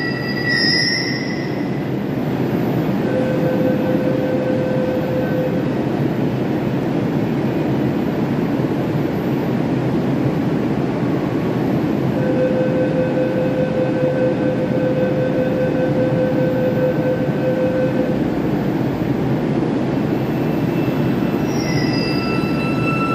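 Cairo Metro Line 3 train at an underground platform: a steady rumble and hum, with thin high steady whines that come and go.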